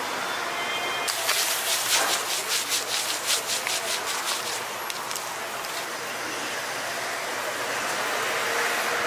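Quick rhythmic scraping on a hotteok griddle, about four or five strokes a second for around three seconds, over a steady frying hiss.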